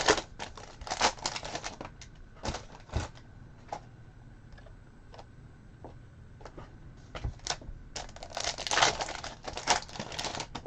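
Trading cards being handled and flipped through: papery slides, soft clicks and crinkling. They come in a busy spell at the start, a few scattered clicks in the middle, and a second busy spell about eight seconds in.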